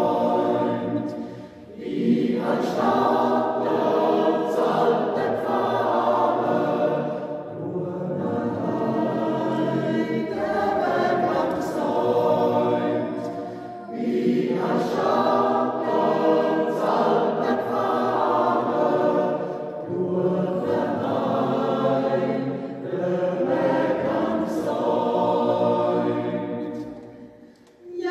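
A mixed Swiss yodel choir of men's and women's voices sings a Jodellied a cappella in long sustained phrases. There are short breath pauses about a second and a half in and again about halfway through, and the phrase fades into a pause near the end.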